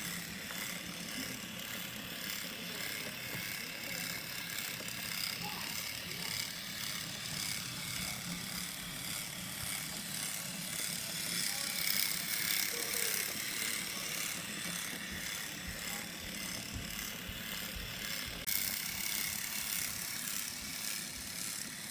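Motorized Thomas toy train running along its track: a steady mechanical whir with fine, rapid ticking.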